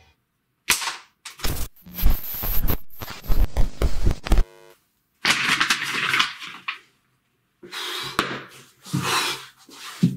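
Handling noises in a small room: a quick run of knocks and clicks as things are picked up and moved, then several bursts of rustling.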